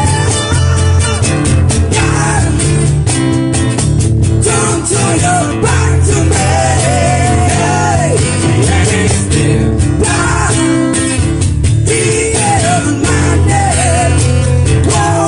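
A small band playing a rock song live: two strummed acoustic guitars, an electric bass and a cajón keeping a steady beat.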